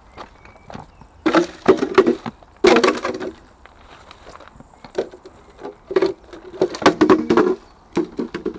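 Pushing through dense bushes on foot: twigs and branches crackling and snapping and leaves brushing close past the camera, in several irregular bursts.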